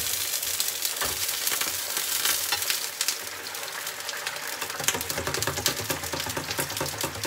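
Hot oil sizzling and crackling steadily: celeriac fries in their first, moderate-temperature bath in a small electric deep fryer, with a piece of hen confit frying in a pan beside it.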